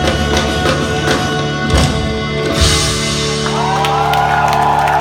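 Rock band playing live, with held guitar chords and a drum kit. There are drum hits and a crash about two and a half seconds in, and voices shouting over the music in the second half as the song draws to a close.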